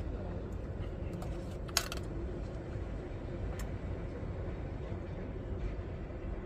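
Steady low outdoor rumble, with a sharp click of metal chopsticks against a metal pot about two seconds in and a lighter click a couple of seconds later.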